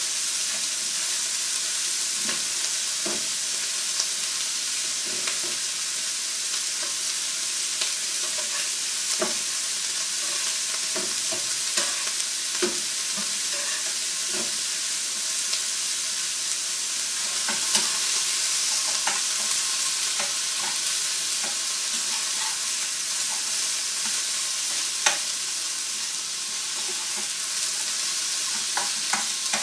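Square sausages and chopped onion sizzling steadily in frying pans, with scattered sharp clicks and scrapes of a utensil against the pans.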